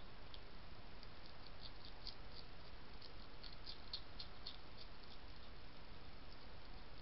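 Hedgehog crunching dry kitten biscuits from a dish: a run of small, crisp crunches, thickest between about one and five seconds in, over a steady hiss.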